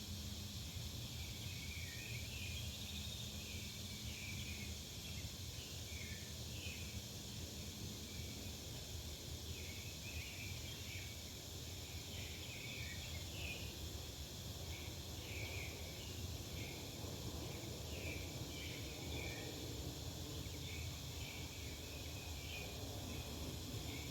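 Backyard ambience: small birds chirping in short, scattered calls over a constant low rumble of distant traffic and a steady high hiss.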